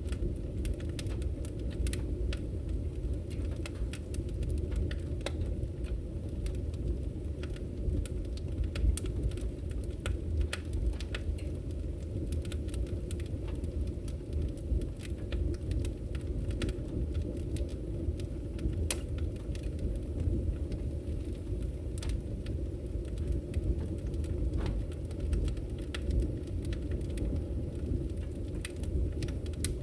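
Wood fire burning in a fireplace: a steady low rumble with frequent sharp, irregular crackles and pops.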